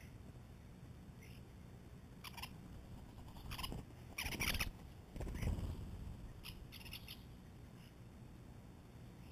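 European starlings at a ground feeding dish: a few short calls, then a loud flutter of wings as a bird lifts off about four seconds in, followed a couple of seconds later by a quick run of short, clipped calls.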